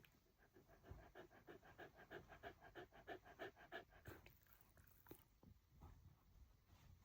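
Shiba Inu panting quickly and faintly, about five breaths a second, stopping about four seconds in; a few faint clicks follow.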